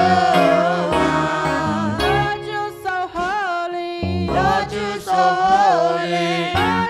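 Live gospel worship music: a singer's voice sliding between held notes over sustained keyboard and bass chords.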